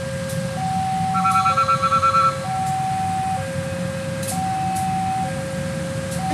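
Level-crossing warning alarm sounding a two-tone high-low signal, switching pitch about once a second, over the low rumble of a CC 203 diesel-electric locomotive passing at slow speed. About a second in, a rapid pulsing beep joins for about a second and is the loudest sound.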